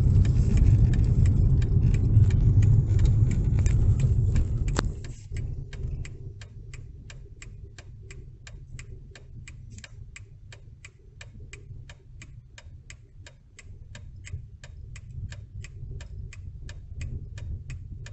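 Inside a car: low engine and road rumble for about five seconds, which then drops away. Under it a car's turn-signal relay clicks evenly, about three clicks a second.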